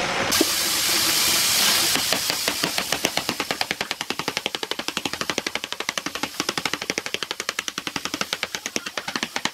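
A wooden mallet striking a glued hexagonal stump block, wood on wood, in quick, even taps several times a second to knock it down into place among the other blocks. A steady hiss fills the first couple of seconds before the tapping starts.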